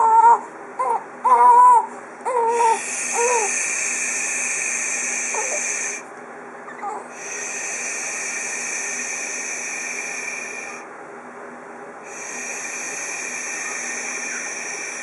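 A fussy newborn gives a few short cries near the start, then a man shushes her in three long, steady 'shhh' breaths of three to four seconds each, with short pauses between, to soothe her.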